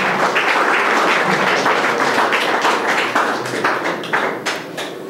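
Audience applauding, the clapping thinning out and dying down over the last second or two.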